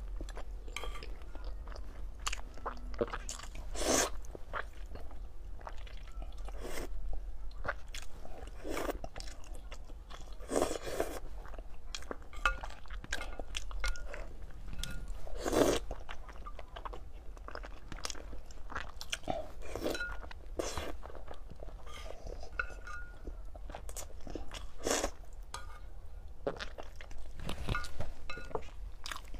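Eating sounds: a person chewing and biting whole boiled eggs from a bowl of hot-and-sour broth, with many small wet clicks of the mouth and a louder bite or slurp every few seconds.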